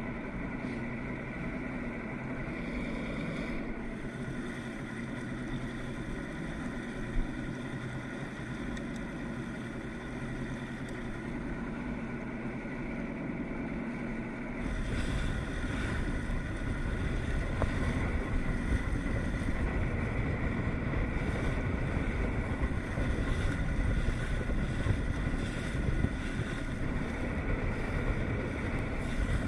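Outboard motor running steadily at trolling speed on a bass boat, with one brief knock about seven seconds in. About halfway through, a low buffeting of wind on the microphone joins in and the sound gets louder.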